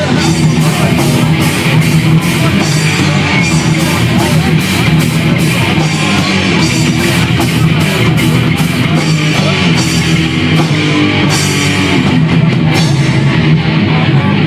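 Punk band playing live and loud: electric guitar and drum kit, with the drums hitting at a steady, driving pace.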